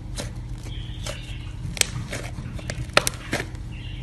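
Thick white slime being squeezed and kneaded by hand, giving a handful of sharp pops and clicks, the loudest about three seconds in, over a low steady hum.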